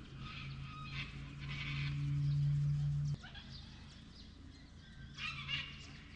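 Sulphur-crested cockatoos screeching: three harsh calls, near the start, about a second and a half in, and a little after five seconds. Under the first half runs a low steady hum that stops abruptly about three seconds in.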